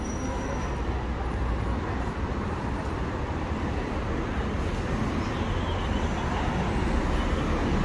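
Steady road traffic noise from a busy city street, a continuous wash of passing cars that grows slightly louder near the end.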